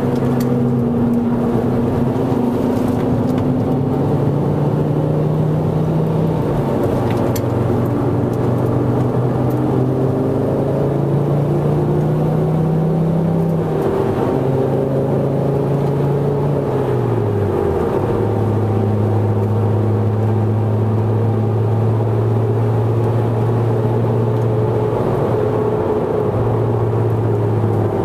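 Mk2 Ford Focus ST's 2.5-litre turbocharged five-cylinder engine heard from inside the cabin under hard track driving. Its pitch climbs, drops sharply at a gear change, climbs again and drops at a second change about halfway, then falls away and holds a steady drone for the last ten seconds.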